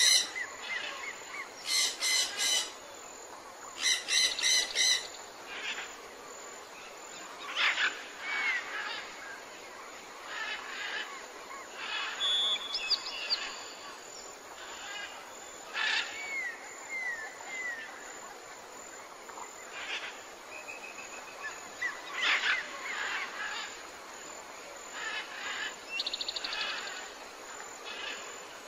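Wild birds calling outdoors: three loud, harsh, rapidly pulsed calls in the first five seconds, then scattered short chirps and brief whistles over a steady background hiss.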